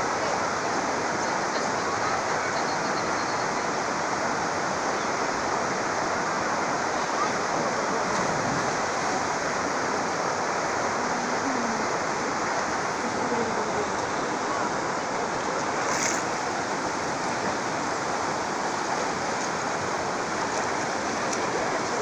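Steady rush of river water flowing over rocks, an even, unbroken sound.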